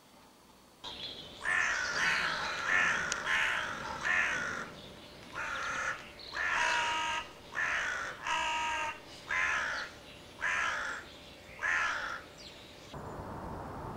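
Johnny Stewart Hammerin mouth-blown crow call blown in a series of about a dozen caws, some short and some drawn out, in uneven groups.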